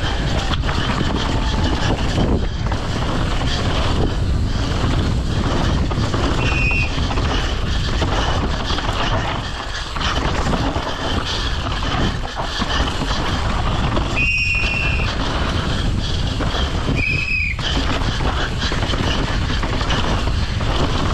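Downhill mountain bike descending a rough, rocky trail: a steady rush of wind and tyre noise with frequent knocks and rattles. Three short high-pitched squeals, from the disc brakes, come about 7, 14 and 17 seconds in.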